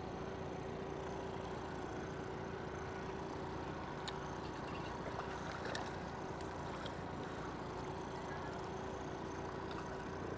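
Steady low mechanical hum with an even tone through it, such as a boat motor running quietly, with a few faint light clicks.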